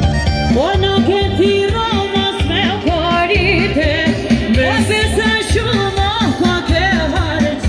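Live Albanian folk song: an electronic keyboard plays a steady, driving beat and a singer comes in with a rising glide about half a second in, then sings an ornamented, wavering melody over it.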